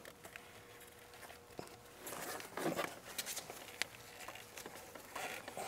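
Faint rubbing and scuffing of work gloves on an ATV's rubber CVT drive belt and clutch sheave as the worn belt is worked off the primary clutch, with a few light clicks.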